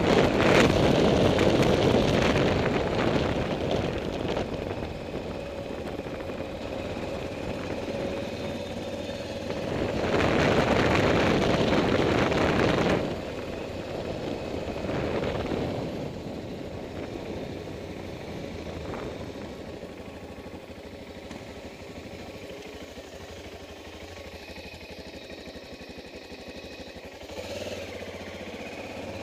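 Motorcycle on the move: wind rushing over the microphone and engine noise, loud at the start and again about ten to thirteen seconds in, then quieter and steadier as the bike eases off and slows.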